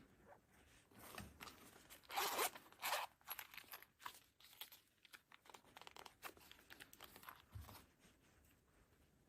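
A zipper being pulled open in a series of short rasps, loudest two to three seconds in.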